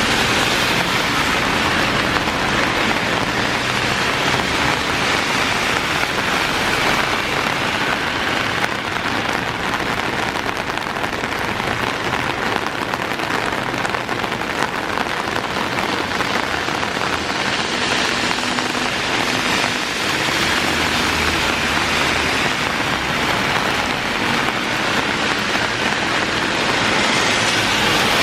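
Heavy rain pouring steadily, a dense hiss of drops on surfaces. It swells a little near the start and again near the end.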